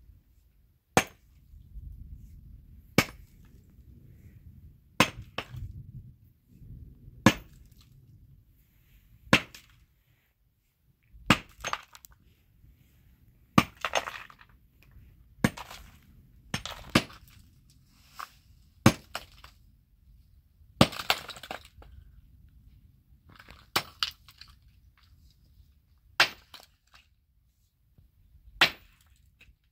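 Pickaxe striking and breaking up layered grey rock, a sharp blow about every two seconds, some blows followed by a short rattle of broken stone.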